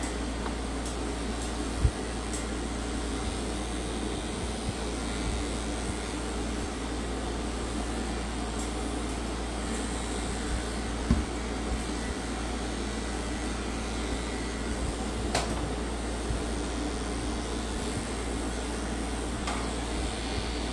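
Steady whirring of a fan-like machine, with a few light clicks and knocks.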